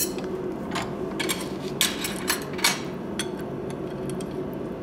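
Steel tools clinking and clicking as a twisting wrench is handled and fitted onto a hot bar clamped in a leg vise: about half a dozen sharp metallic clicks in the first three seconds. Under them runs the steady hum of a gas forge.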